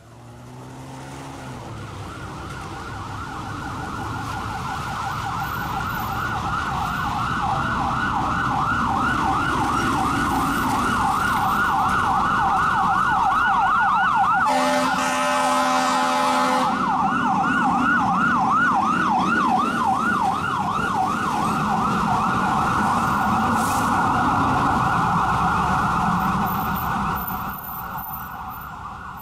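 Fire rescue truck's electronic siren cycling rapidly up and down as the truck approaches and passes, with a diesel engine rumble beneath. About halfway through, a horn blast of roughly two seconds cuts over the siren. The siren grows louder as the truck comes closer and fades near the end.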